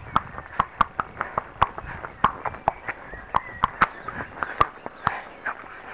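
Horse's shod hooves on a paved lane: a steady clip-clop of about three to four hoof strikes a second.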